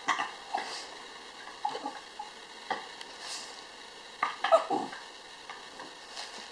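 Scattered short rustles and light clicks, a few small handling noises, with the loudest cluster about four and a half seconds in.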